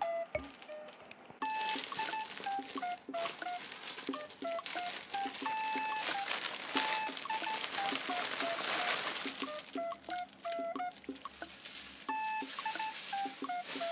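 Plastic bag crinkling and rustling as a stuffed toy is pulled out of its wrapping. It starts about a second and a half in, is loudest about nine seconds in, and dies away about ten seconds in. Light background music of short plinking notes plays throughout.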